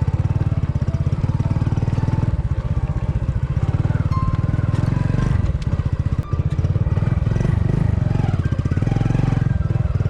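Hero Splendor motorcycle's single-cylinder four-stroke engine running under load while riding a rough off-road trail, its firing a steady low pulse. Its sound briefly dips about six seconds in.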